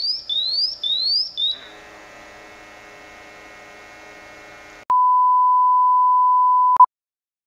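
Rising electronic chirps, four in a row with the last cut short, from a BW GasAlertMax XT II portable multi-gas detector as it is switched on. A faint steady hum follows, then a loud, steady test tone lasting about two seconds that stops with a click.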